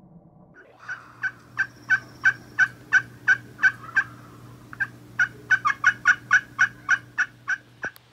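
Wild turkey calling: a long run of evenly spaced, yelp-like notes, about three a second, coming faster for a short stretch about two-thirds of the way through. A single sharp click sounds just before the end.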